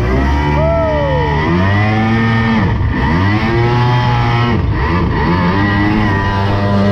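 225 hp outboard motor running hard on an aluminum boat, its pitch swinging up and down, dropping sharply and climbing back twice.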